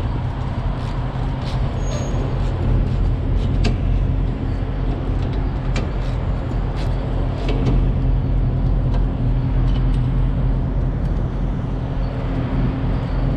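A heavy diesel engine idling steadily, in keeping with a semi truck, with a scatter of short sharp clicks on top.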